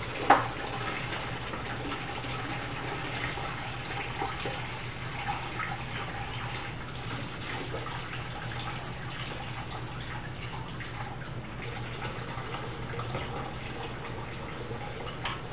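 Engine coolant running out of a disconnected radiator hose into a bucket, a steady trickle and splash over a low steady hum. There is one sharp knock just after the start and a few light clicks.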